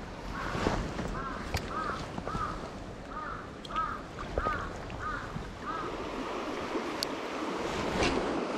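A bird calls in a quick, even series of about nine short notes that rise and fall, about two a second, over the steady rush of a shallow stream with a few small splashes and clicks.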